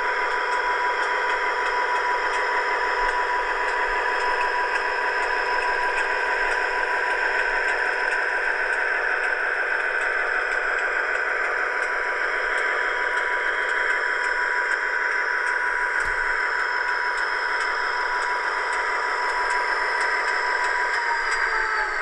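Sound decoder in a Dapol OO gauge Class 59 model locomotive playing its recorded two-stroke diesel engine sound through the model's small speaker: a steady engine drone with a high whine over it, thin and without bass. About a second before the end the pitch drops.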